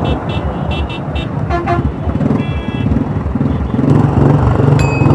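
Motorcycle engine running on the road, getting louder in the second half as the bike speeds up. Vehicle horns toot several times in short blasts, a few in the first two seconds and one more near the end.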